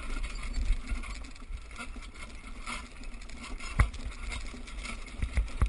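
Horse-drawn carriage with a pair of horses moving over a dirt arena: a steady low rumble and rattle of the rig, with wind buffeting the microphone. Two sharp knocks, one just under four seconds in and a second near the end.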